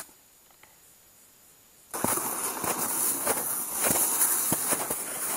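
Footsteps in snow, starting about two seconds in after a quiet pause and going on at a walking pace.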